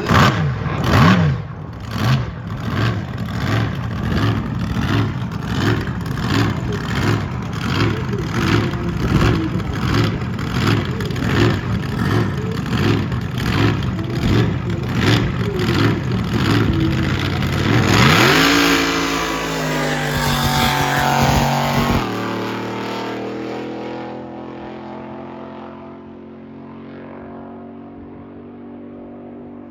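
Drag boat's 468 big-block Chevy V8 idling with an even, loping beat, then revving up hard about 18 seconds in as the boat launches. The engine note then holds steady and fades as the boat runs away down the course.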